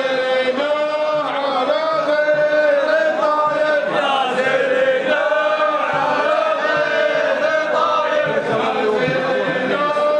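A group of men chanting a sung poem together in a traditional Arabian men's chant, with long drawn-out notes and no clear drumbeat.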